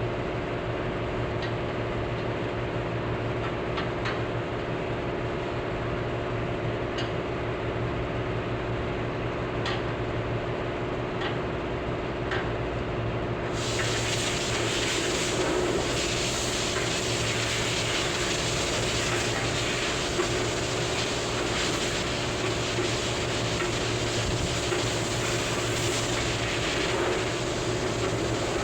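A steady machine hum with a few light ticks. About halfway through, a loud steady hiss starts suddenly and carries on over the hum.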